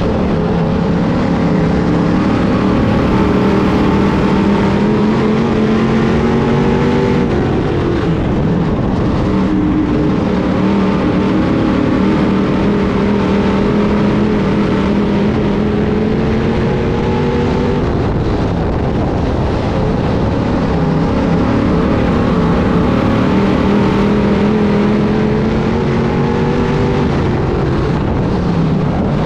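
A 602 Sportsman dirt modified's GM 602 crate V8 heard from inside the car at racing speed. It winds up in pitch down each straightaway and drops off as the driver lifts for the turns, three times, once a lap.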